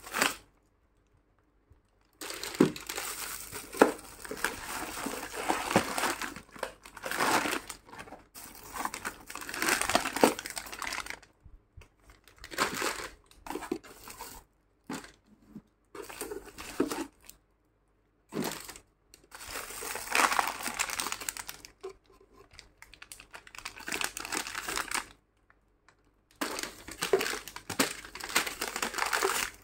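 Plastic packets of mothballs and paper cartons rummaged through and lifted out of a cardboard box: plastic crinkling with light knocks, in spells of a few seconds separated by short silences.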